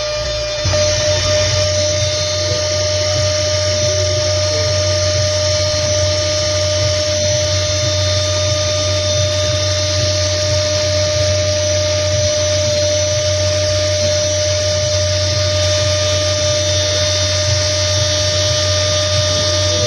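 A small electric rotary tool, clamped in a stand and fitted with a small polishing wheel, runs steadily with a high whine over a low hum while gold jewellery is polished against it. The tool is a little quieter for the first second, then even.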